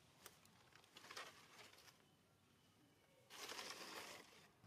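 Faint rustling with a few soft clicks, and a louder rustle lasting about a second, starting about three seconds in.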